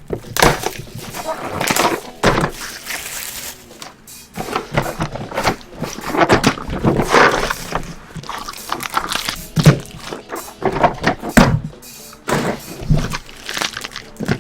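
Football card packs being opened and handled: wrappers crinkling and tearing, and cards and packaging knocking irregularly against the table.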